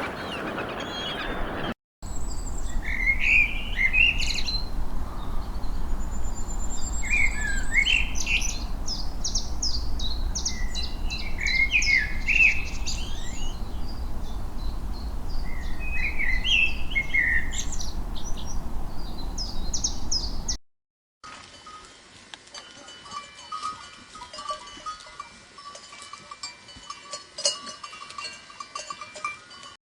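A songbird singing repeated short phrases with fast trills, over a steady low rumble. After a sudden cut, a fainter stretch of scattered short whistles and ticks follows.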